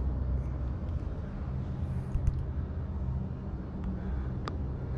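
Steady low hum and rumble of background room tone in a large hall, with a couple of faint clicks.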